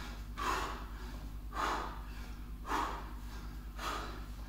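A man breathing hard from exertion during bodyweight squats, with four forceful breaths about a second apart.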